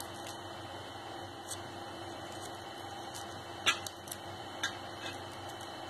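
Hands shredding cooked boneless chicken on a steel plate: a few light clicks, the sharpest about three and a half seconds in, over a steady background hum.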